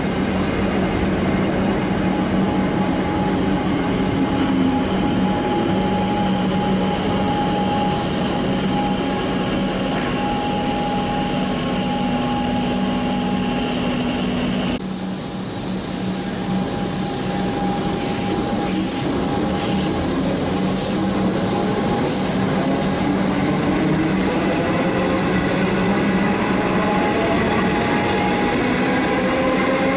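Comeng electric suburban train at the platform, with a steady hum of its onboard equipment and held tones. After a cut about 15 seconds in, a Comeng train pulls away, its traction motor whine rising in pitch as it picks up speed.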